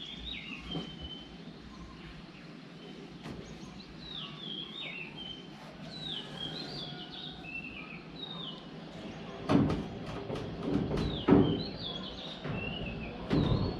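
A small songbird singing phrases of short, quick, falling chirps, repeated several times. In the second half come a few loud knocks, the loudest sounds, with the last near the end.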